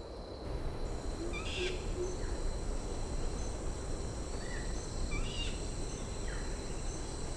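Tropical rainforest ambience: a steady high insect drone, with short bird chirps now and then. About a second in comes a low hoot of three short notes.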